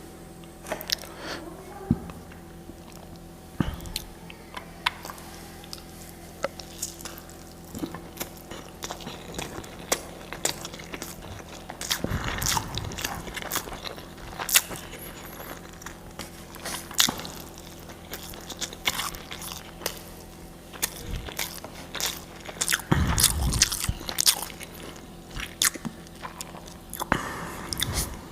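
A person eating close to the microphone: chewing with wet mouth sounds and scattered sharp crunches and clicks, with a few heavier bites.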